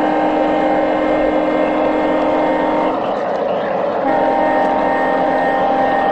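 Horn of a G-scale White Pass & Yukon Route diesel model locomotive's sound unit, a chord of several tones blown in a long blast that stops about three seconds in. A second long blast starts about a second later, over the steady running noise of the locomotive.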